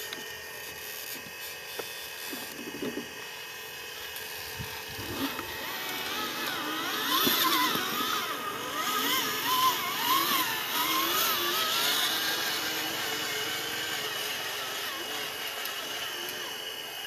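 Electric drive motor and gearbox of a radio-controlled model dump truck whining as it drives, the pitch rising and falling with the throttle. It is loudest in the middle, as the truck passes close by.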